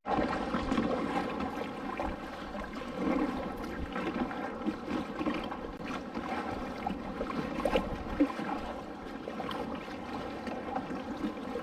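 Kayak paddling on open lake water: the paddle dipping and pulling and water splashing and lapping against the kayak hull, in an uneven run of sloshing with a few louder splashes.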